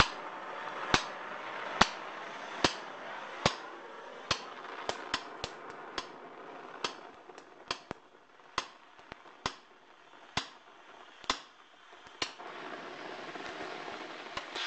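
A series of sharp knocks, about one a second at first and then irregular, over a steady hiss that fades through the middle and comes back near the end.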